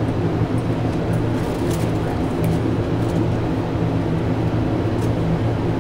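A steady, low mechanical hum with several even tones, unchanging throughout, with a few faint light ticks.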